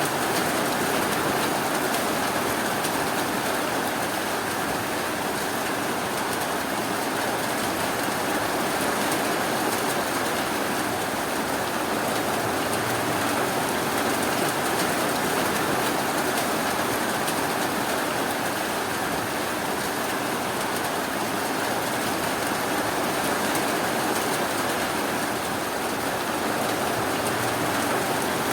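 Steady, even rainfall with no breaks or sudden sounds.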